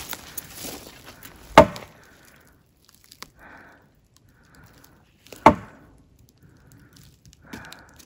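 Two loud tree knocks: wood struck hard against a tree trunk, about four seconds apart.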